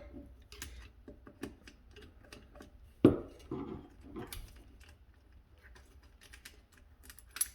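Light clicks and taps of a screwdriver and small metal parts being handled as a Romex cable connector is taken off a garbage disposal, with a sharper knock about three seconds in and another near the end.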